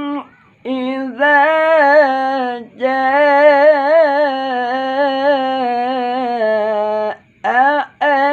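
A man chanting Qur'an recitation (tilawah) in a melodic style, in short phrases and then one long held phrase whose pitch wavers in ornaments. He breaks off for a breath about a second before the end and starts a new phrase.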